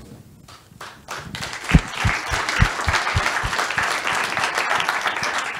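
Audience applauding in an auditorium, the applause starting about a second in and continuing steadily.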